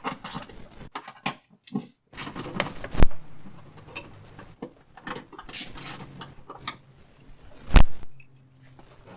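Hand-tool and parts handling while disconnecting a vehicle battery: scattered clicks, rattles and scraping. Two sharp knocks stand out, about three seconds in and near the end.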